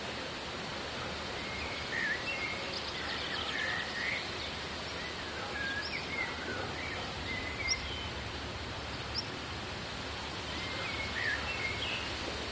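Outdoor street ambience: a steady background hiss with small birds chirping on and off, in short bursts of a few chirps.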